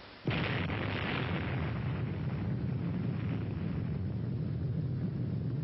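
Atomic bomb explosion: a sudden blast about a quarter of a second in, then a steady, heavy rumble that holds without dying away.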